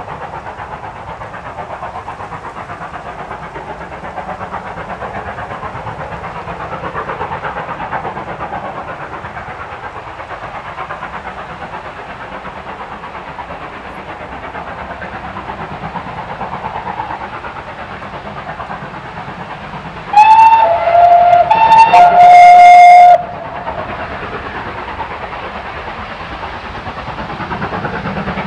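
A pair of steam locomotives double-heading a passenger train, working with a steady, fast exhaust beat. About two-thirds of the way through, a locomotive steam whistle sounds twice, each blast about a second and a half long and louder than the train.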